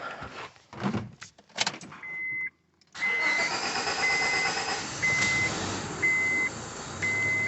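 A 2001 Honda Civic's D17A four-cylinder engine is cranked and starts about three seconds in, then runs rough. A warning chime beeps about once a second throughout. A few clicks come before the start. The mechanic traces the rough running and hard starting to a loose alternator that has damaged the ECU.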